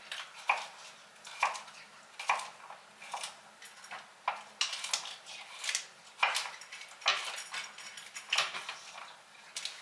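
Irregular clinks and clatter of dishes and utensils in a kitchen, one sharp knock or clink every half second to a second.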